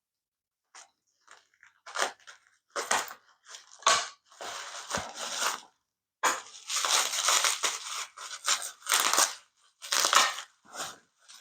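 A parcel's packaging being torn open and crumpled by hand, in irregular bursts of tearing and crinkling with a few sharp crackles.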